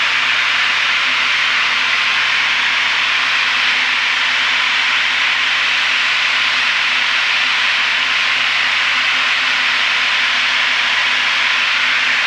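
Steady cabin noise of a Piper PA32R single-engine piston plane in flight on approach: an even rushing noise of engine, propeller and airflow, with a faint low hum beneath it.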